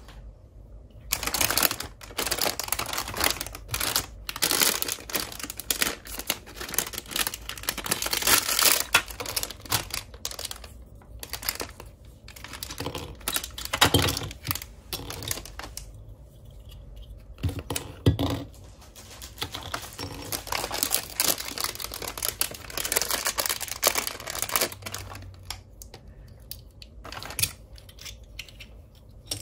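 Clear plastic bags crinkling and rustling as hands open them and pull out hard plastic toy parts, with light clicks and knocks of the pieces. It comes in irregular spells with short pauses.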